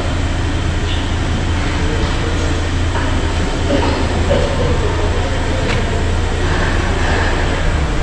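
Hyundai Elantra's engine idling with the bonnet open: a steady low hum with a faint mechanical clatter above it.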